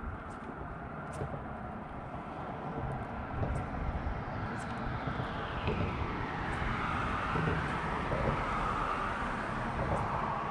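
A motor vehicle passing, its noise swelling from about four seconds in with a whine that falls in pitch as it goes by, over a steady low rumble.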